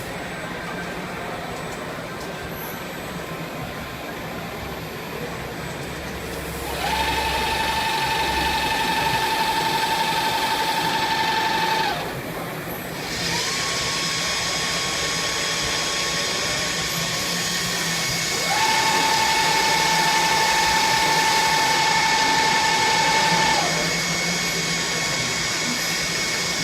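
Swiss-type CNC lathe with a thread whirling attachment machining a bone screw: a steady machine hum, with a high, even spindle whine that comes in twice for about five seconds each time as the machine gets louder.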